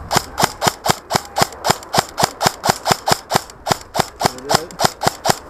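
VFC HK416 airsoft electric gun firing single shots in quick succession, about four a second, over twenty sharp snaps in a row.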